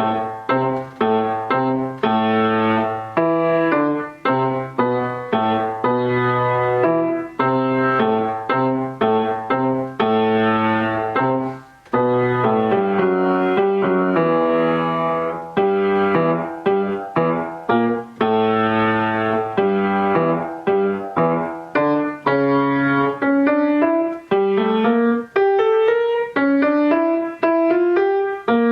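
Solo piano playing a slow piece: struck notes over repeated low bass notes, with a brief break about halfway and a chain of rising notes near the end.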